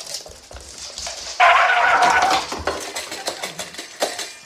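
A pet animal's call, one drawn-out pitched cry that starts suddenly about a second and a half in and lasts over a second, among small clicks and knocks.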